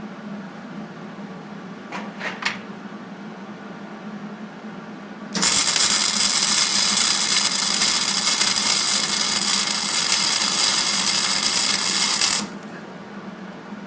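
Flux-core wire-feed welder laying a bead on steel, a steady crackling arc that starts abruptly about five seconds in and stops just as abruptly about seven seconds later. A few light knocks come about two seconds in.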